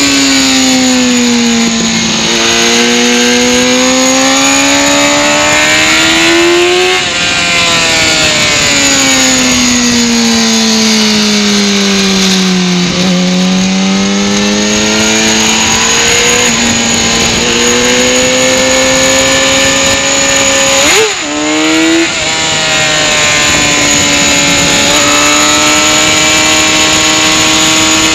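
Motorcycle engine at racing speed, revs climbing hard on the straights and dropping away into corners, with sudden steps in pitch as it changes gear and a brief break about three quarters of the way through. Wind rush over the bike throughout.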